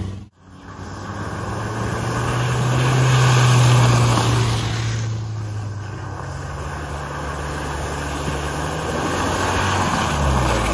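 Off-road 4x4s driving along a muddy lane through a puddle: engines running steadily under the wash of tyres through water, loudest about three to four seconds in.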